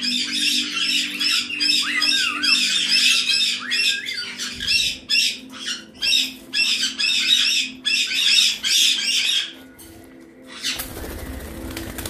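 Caiques screeching: a long run of shrill, rapid, repeated calls that stops about nine seconds in. A short burst of flapping and scuffling follows near the end.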